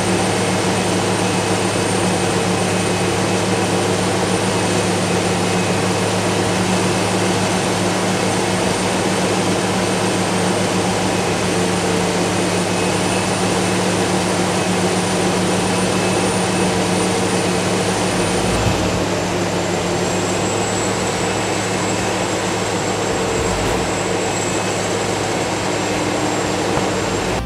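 John Deere 8700 self-propelled forage harvester running steadily under load while chopping corn: a loud, even engine and machine drone with a thin high whine over it. The whine steps slightly lower in pitch about two-thirds of the way through.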